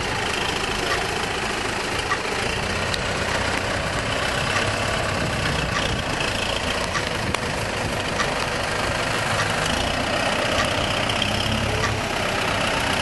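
Tractor diesel engine running steadily at low revs while the tractor creeps forward towing a feed mixer wagon.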